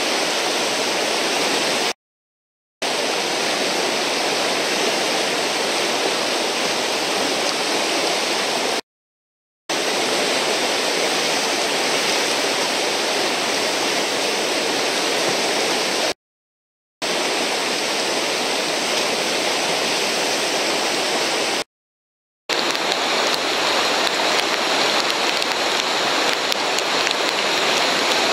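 Steady rush of whitewater from a river's standing wave, broken four times by short dead-silent gaps where separate clips are spliced together.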